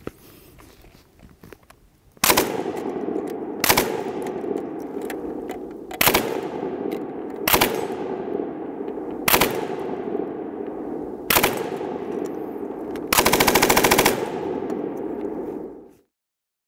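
UK vz.59 belt-fed machine gun in 7.62x54R firing six short bursts about one and a half to two seconds apart, then a longer burst of about a second, each followed by a rolling echo. The sound cuts off abruptly near the end.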